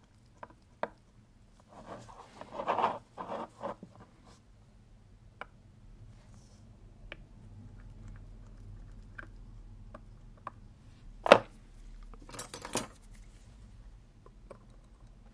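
Small clicks, taps and rubbing of fingers and steel tools on a watch movement and its metal movement holder, as the screws of the auto-winding bridge are taken out. A scratchy patch of handling comes about two to four seconds in, and a single sharp click, the loudest sound, comes about three-quarters of the way through.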